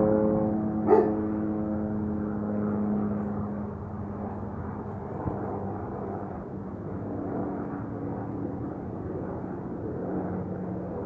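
Helicopter droning overhead, a steady hum that is loudest in the first few seconds and then eases off. A brief yelp comes about a second in.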